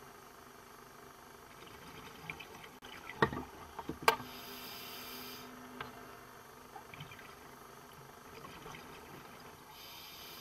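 Underwater sound of a scuba diver breathing through a regulator: a hissing breath about halfway through and another near the end. A cluster of sharp clicks and knocks comes just before the first breath, the loudest about four seconds in, followed by a faint low hum.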